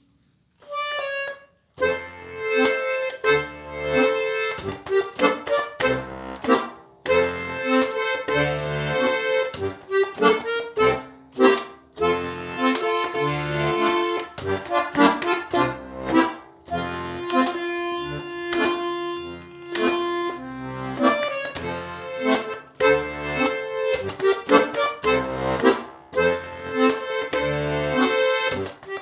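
Bayan, a Russian chromatic button accordion, playing a swing tune: a brief opening phrase, then left-hand bass notes marking a regular beat under a busy right-hand melody.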